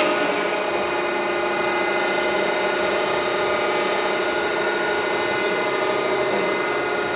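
A 1993 Okamoto ACC-1224DX hydraulic surface grinder running steadily in its automatic grinding cycle. The wheel spindle and hydraulic pump make a constant hum with several steady whining tones over a hiss.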